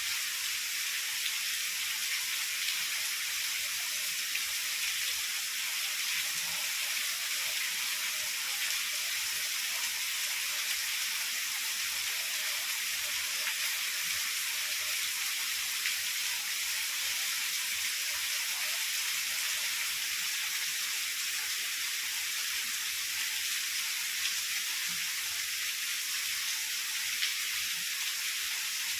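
Heavy rain falling steadily, an even high hiss with no thunder.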